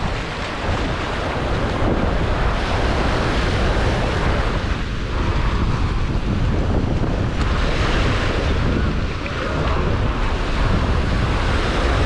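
Steady wash of surf on the beach, with wind noise buffeting the camera microphone.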